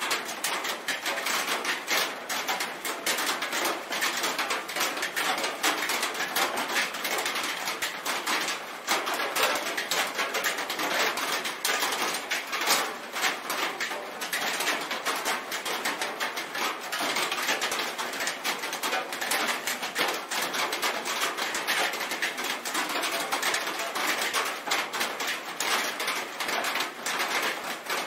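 Rain falling steadily on a metal roof: a dense, even patter of countless individual drop hits with no let-up.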